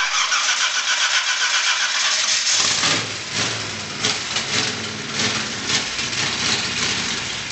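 Ford 460 big-block V8 being cranked over on the starter for a couple of seconds, then firing about three seconds in and running unevenly with irregular blips of throttle. It stops near the end.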